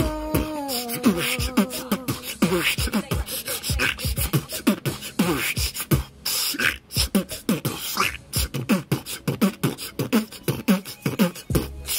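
A person beatboxing: quick rhythmic mouth clicks and hissing snare sounds over short bass hums that fall in pitch, about three a second, opening with a sung note gliding downward.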